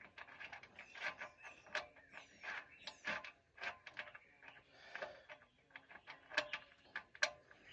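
Faint, irregular clicks and scrapes of a spark plug in its socket and extension knocking against the engine while it is fed blind toward a hard-to-reach plug hole.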